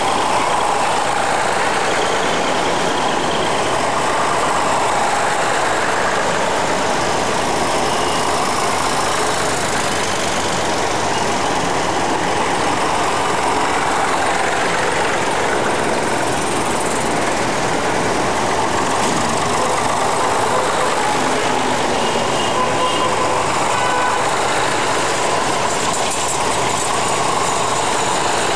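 A procession of vintage farm tractors and small motorcycles driving past close by, their engines running in a steady, overlapping din.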